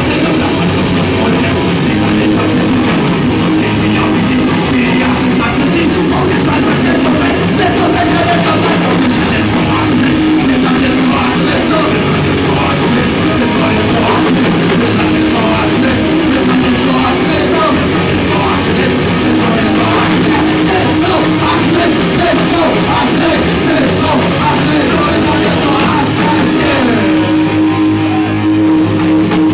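A rock band playing live and loud: electric guitar and full band, with a singer's voice over it.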